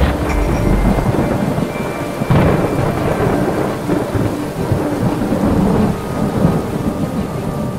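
Thunderstorm: thunder rumbling over steady rain, with a sudden louder roll of thunder about two seconds in.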